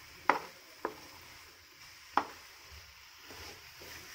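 Wooden spatula stirring chopped plantain with melted sugar and coconut in a nonstick frying pan, three sharp taps of the spatula against the pan over a faint sizzle.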